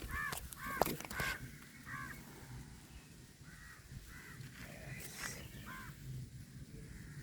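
Crows cawing: a string of short, harsh caws in quick runs. A few sharp clicks or knocks come in the first second or so.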